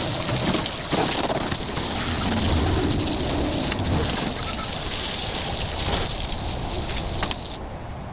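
Water spraying hard onto a push mower as it is washed down, a steady hiss that cuts off suddenly near the end.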